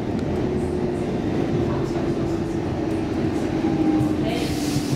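Stockholm Metro C14 subway car arriving at a station platform: a steady low rumble with a faint whine that falls slightly in pitch. A short burst of hiss comes near the end.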